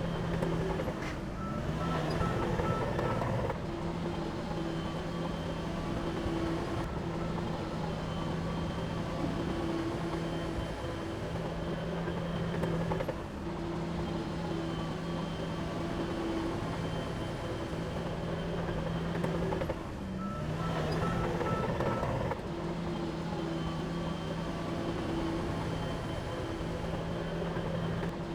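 Heavy diesel earthmoving machinery running steadily, working under load twice in a stretch of a couple of seconds. Each time comes with a short run of high beeps, at about two seconds and about twenty-one seconds in.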